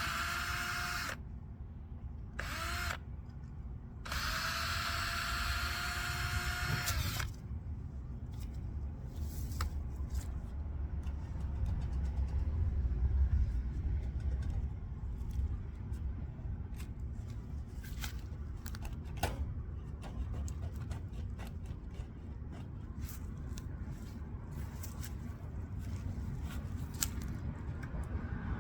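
Cordless drill running at a steady whine in three runs: about a second, a short blip, then about three seconds, with the pitch sagging slightly as it stops. This fits backing screws out of old wooden fence rails. After that there is a low rumble with scattered clicks and knocks.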